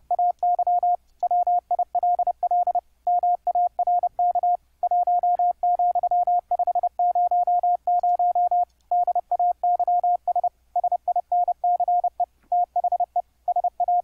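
Morse code (CW) sidetone from the YPLog software keyboard, a single steady pitch keyed fast at 30 words per minute. At first the dots and dashes have hard, clicky edges, YPLog's harsh keying with the bandpass filter opened all the way. About ten and a half seconds in, the edges turn softer as the filter is tightened.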